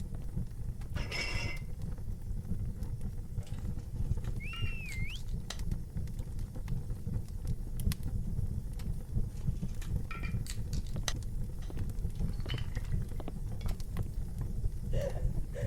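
Tavern ambience: a low steady murmur under scattered knocks and clinks of mugs and tableware. There is a short raised voice about a second in and a brief wavering squeal around four to five seconds in.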